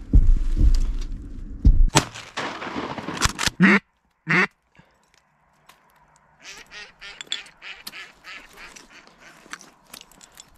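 Ducks quacking: a couple of loud quacks about three and a half seconds in over wind buffeting and rustling on the microphone, then after a short lull a string of fainter quacks, about two a second, for the rest of the time.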